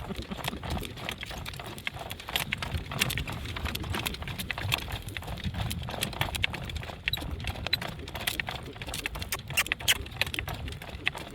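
Hooves of a driving horse in harness clopping along as it works, an irregular run of sharp clicks and knocks over a low rumble.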